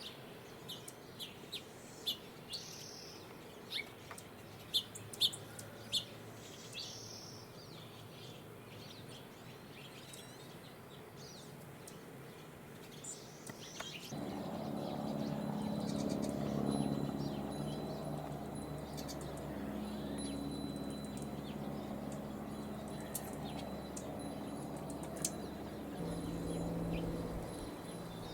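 Small songbirds calling with short, separate chirps, a dozen or so over the first half. About halfway through, a low, steady droning hum with several held pitches comes in and stays to the end, dropping in pitch near the end.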